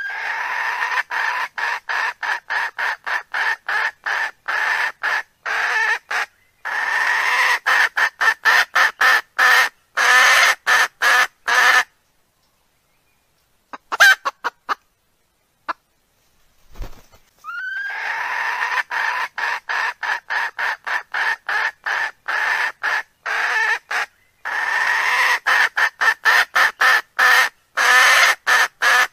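Recorded wild-fowl call played in a loop as a hunting lure for wild cocks. Short, evenly spaced clucks, about three to four a second, run for about twelve seconds, each run opening with a brief rising note. After a pause with a few clicks, the same run starts again.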